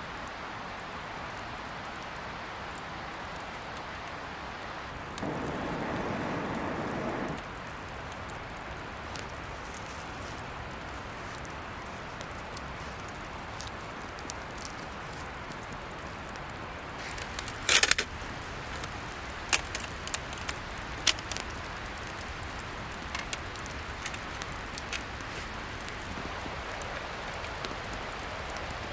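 Wood fire crackling over a steady hiss, with one loud pop a little past halfway and scattered sharp snaps after it. A brief rush of noise lasting about two seconds comes around five seconds in.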